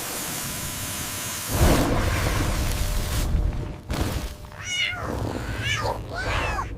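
Kitten meowing three times near the end, short high calls. These follow a steady rushing noise that has a louder low rumble in its second half.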